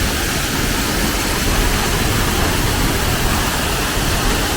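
Steady rush of falling water from a pond's waterfall.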